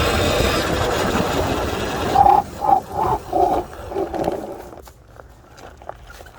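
Surron electric dirt bike's mid-drive running under way with a noisy whine and gear rattle. About two seconds in, a string of five or so short squeals follows as the bike brakes and slows. It then goes quieter, with only light clicks.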